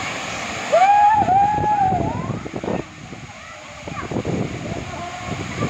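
Voices shouting and calling out, with one long, loud shout about a second in, over the steady rush of a waterfall.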